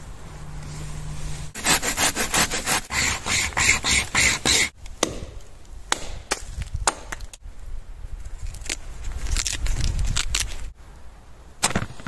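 Dry twigs and branches snapping and crackling as someone pushes through dense forest undergrowth. It comes as a quick run of crackles, then scattered single snaps with some rustling.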